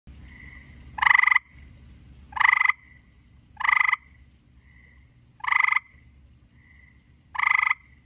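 Gray tree frog calling: five short trills, each a fast run of pulses, repeated about every one and a half to two seconds.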